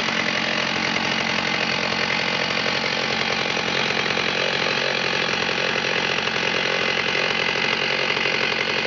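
A 1980 Stihl 038 chainsaw's 3.7 cubic inch two-stroke engine running at an even, steady speed just after starting.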